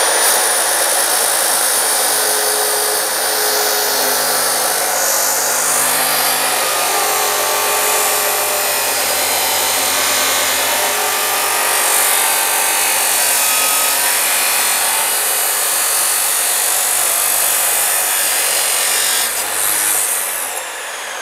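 DeWalt D28730 14-inch abrasive chop saw (2300 W motor) cutting through 5 mm-thick steel angle iron: a steady, loud grinding of the abrasive wheel on steel with a high motor whine. Near the end the cut finishes and the saw is switched off, its whine falling in pitch as the wheel spins down.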